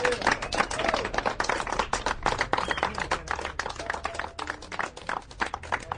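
A small crowd clapping: many hands applauding at once in a dense, irregular patter.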